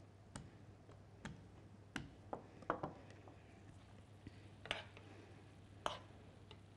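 Light, irregular taps and knocks of hands and utensils at a kitchen counter while pastry is assembled, about eight or ten in all, the loudest about two and a half seconds in and near the end. A faint low steady hum underlies them.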